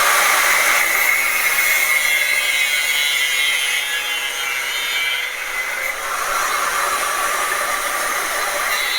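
Power tool running steadily while cutting a ceiling fan's mounting part, with a steady high whine over a rasping noise that dips briefly about five seconds in.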